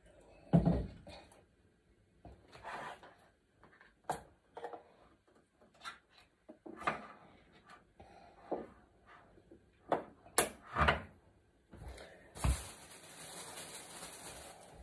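Frying pan set down on a gas stove's grate with a clunk, followed by scattered light knocks and clicks of kitchen handling. A steady hiss starts about two seconds before the end.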